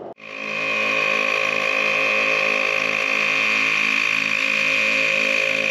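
ARB twin air compressor running steadily, a high whine over a fast, even pulsing chug, as it pumps a 4WD tyre back up after beach driving. It comes in just after the start.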